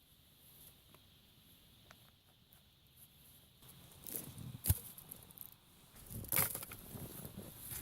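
Faint rustling for the first few seconds, then a few irregular crunching knocks and thumps, the sharpest about halfway through and another cluster about six seconds in.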